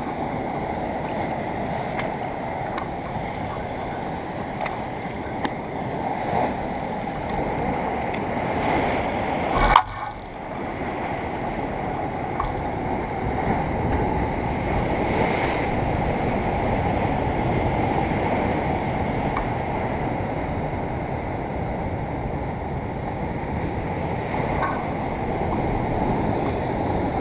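Sea surf washing and breaking against coastal rocks as a steady rush of noise, with one sharp knock about ten seconds in.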